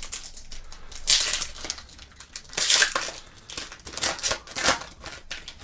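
Plastic trading card pack wrapper torn open and crinkled by hand, in several uneven rustling bursts.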